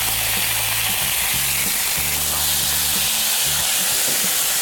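Chicken wings sizzling in hot oil in a frying pan over high heat, a steady, dense hiss.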